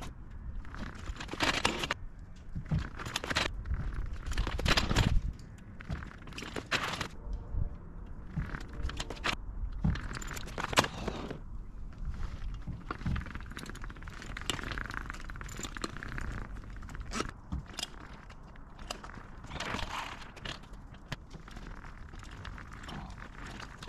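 Irregular footsteps, scuffs and knocks, most plausibly someone trying to mount and balance a heavy homemade unicycle with a knobby dirt-bike tyre, over a low rumble.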